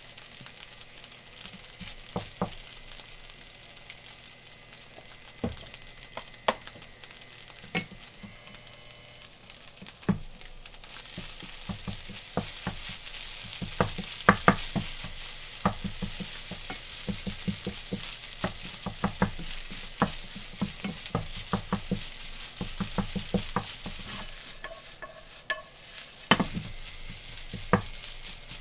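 Egg fried rice sizzling in a metal frying pan while a wooden spatula stirs and tosses it, with frequent sharp knocks of the spatula against the pan. The sizzle grows louder about ten seconds in.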